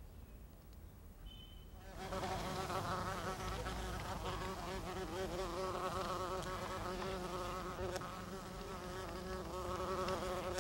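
A bee buzzing in flight, its hum wavering up and down in pitch. It starts about two seconds in and carries on.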